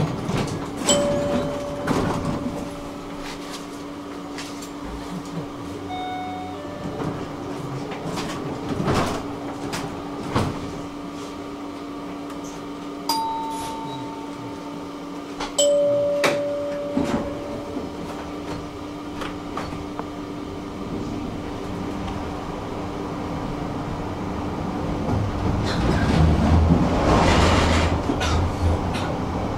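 Tram standing with a steady electrical hum, with scattered knocks and a few short electronic beeps. Near the end it starts moving and the low rumble of its motors and wheels builds.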